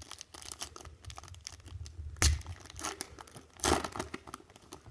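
A 2017 Playoff football card pack wrapper being torn open and crinkled, with two louder rips, one a little over two seconds in and another about a second and a half later.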